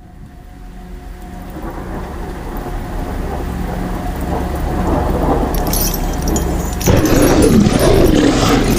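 Home-made sound effect: a low, noisy rumble that fades in and keeps building, with crackling hiss joining and a sudden louder surge about seven seconds in.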